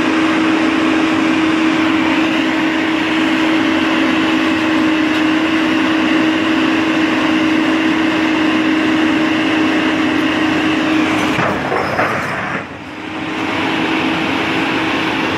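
Loud, steady running noise of a heavy vehicle with a constant hum. It drops away briefly about four fifths of the way through, then resumes.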